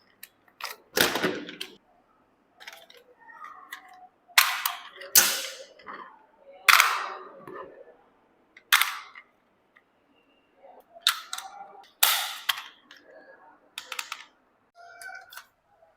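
Irregular sharp cracks and rustles of packaging being handled and torn open, about a dozen loud snaps spread through the stretch with quieter rustling in between.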